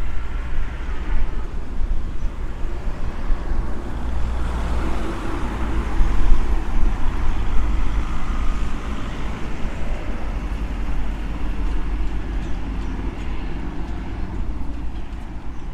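Street traffic noise, with a vehicle passing: the sound swells about four seconds in, peaks, then fades, over a steady low rumble.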